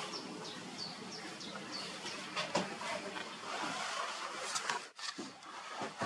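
A small bird calling repeatedly: short, high chirps that fall in pitch, about three a second, thinning out after the first couple of seconds, over a steady outdoor hiss.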